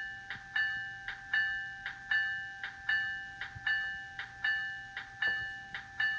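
Locomotive bell sound from the DCC sound decoder of a Walthers Mainline Amtrak F40PH model, ringing continuously. Each cycle is a strong clang followed by a lighter one, repeating about every three-quarters of a second, with the last ring dying away at the end.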